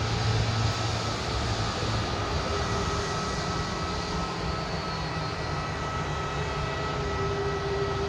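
Airliner engines running steadily: a broad rush with a few thin, steady whining tones, easing slightly in the first second.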